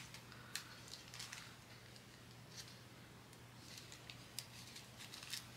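Faint, scattered light clicks and rustles from handling tiny plastic bags of diamond-painting resin drills, over a faint steady low hum.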